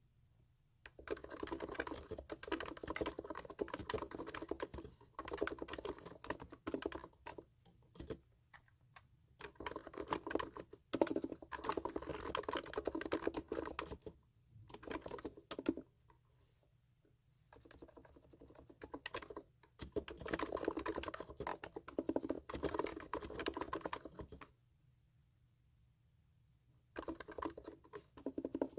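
Typing on a computer keyboard: runs of rapid key clicks lasting a few seconds each, broken by short pauses and one longer pause near the end.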